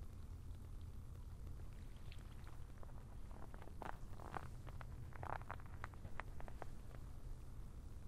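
Crisp crunching and crackling of snow and ice in a short cluster about halfway through, over a steady low rumble.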